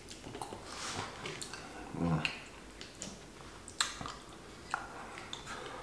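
Close-up eating sounds: a plastic fork clicking against a plastic cup of mashed potatoes and gravy, with soft mouth and lip sounds as he eats. A short low murmur comes about two seconds in.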